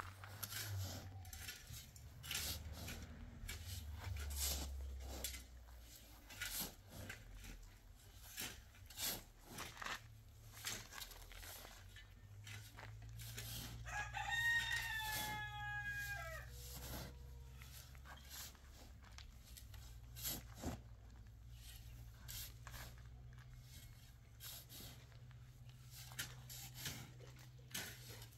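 A rooster crows once, about halfway through: one long call that holds its pitch and drops at the end. Scattered clicks and knocks run around it.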